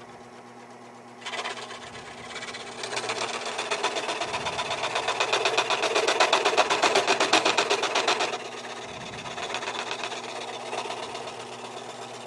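WEN scroll saw running at a slow speed setting, its reciprocating blade cutting half-inch red oak in a fast, even rhythm. The cutting grows louder about a second in, is loudest for several seconds, then eases off near the two-thirds mark while the saw keeps running.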